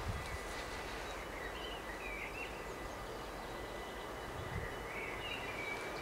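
Outdoor background noise, a steady low rumble, with a few short bird chirps about two seconds in and again near the end.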